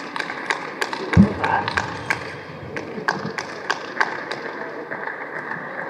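Scattered sharp light clicks and taps, a few every second and thinning out near the end, with one dull low thump about a second in, over the steady hum of the hall.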